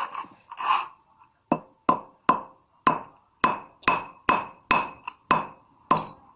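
Hammer tapping a small part of a household electrical switch, about a dozen sharp ringing taps at roughly two a second, to knock it into shape so its nut will fit.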